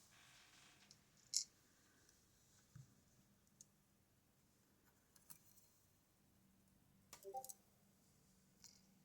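Faint, scattered small metal clicks and taps from handling a West 917 high-pin-count lock with lock tools, with a sharper click about a second and a half in and a quick cluster of clicks with a brief ring near the end.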